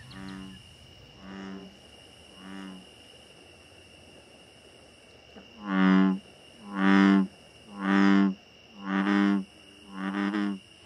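Deep, droning frog calls repeated about once a second: three faint ones, then five much louder ones from about six seconds in. A steady high insect trill runs underneath.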